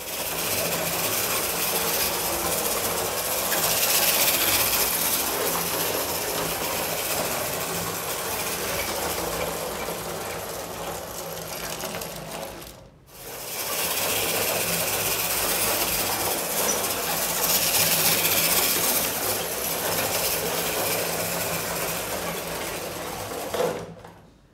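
Meccano 1a clockwork motor whirring steadily as it drives a Meccano 0-8-0 locomotive around O gauge track. The sound dips out briefly about halfway, then resumes and fades away near the end.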